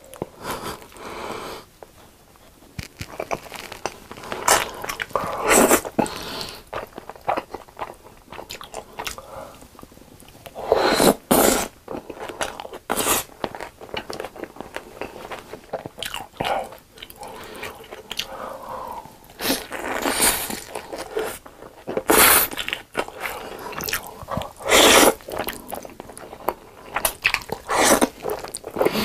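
Close-miked eating: slurps of black bean noodles (jajangmyeon) and crunchy bites and chewing of sauced fried chicken, in irregular loud bursts with quieter chewing between.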